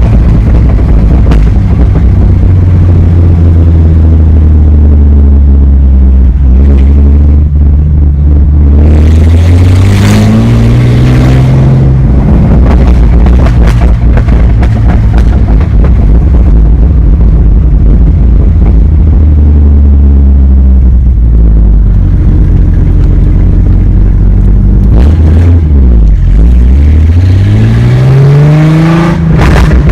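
2004 Ford Mustang's exhaust, loud, droning steadily at cruise and rising in pitch as the car accelerates, about eight seconds in and again near the end. Sharp crackles and pops break through it now and then.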